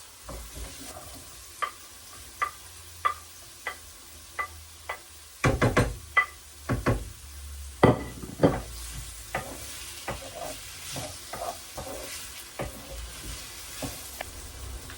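Vegetables sizzling in oil in a frying pan while a utensil stirs them, knocking and scraping against the pan. The knocks come regularly, about one every 0.7 s at first, then a louder cluster of knocks around the middle, then lighter, scattered ones over the faint steady sizzle.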